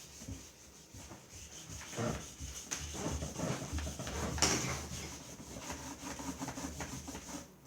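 Marker scribbling on a drawing surface, an irregular run of scratchy rubbing strokes with louder strokes about two and four and a half seconds in.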